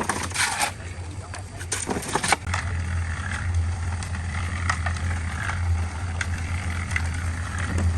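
A few sharp knocks and scrapes, then a steady mechanical hum from a motor that starts about two and a half seconds in and keeps running.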